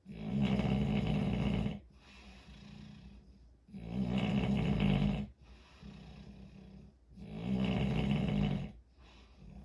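Snoring in a steady rhythm: three loud snores, each about a second and a half long and coming roughly every three and a half seconds, with quieter breaths between them.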